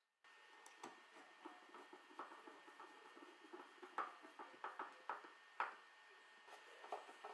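Light, irregular clicks and taps of small wooden puzzle-box parts being handled and fitted, over a faint steady hiss, with two sharper knocks about four and five and a half seconds in.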